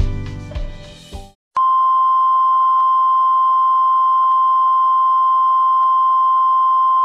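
Background keyboard music fades out and stops, then about a second and a half in a steady, unbroken beep starts and holds: the test-card tone of a TV test pattern, with a faint hiss around it.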